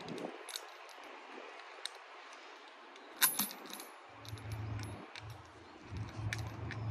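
Metal hook and chain links clinking as a chain is hooked up: scattered sharp clinks, a quick cluster about three seconds in and several more over the next few seconds. A low steady hum comes in about four seconds in.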